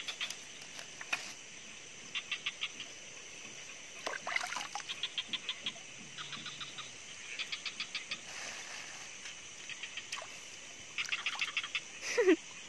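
Night chorus of frogs and insects: short trains of rapid pulsed calls repeating every second or two, over a steady high insect hum.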